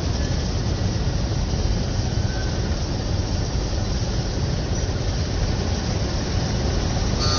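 Steady low rumble of street traffic, an even noise without breaks or distinct events.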